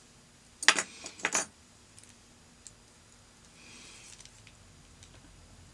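Two brief metallic clattering clicks of small fly-tying tools being handled, about half a second apart, near the start.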